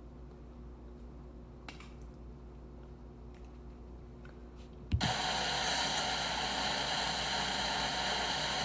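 Low steady hum with a few faint clicks, then a thump about five seconds in and a sudden loud, steady hiss like static.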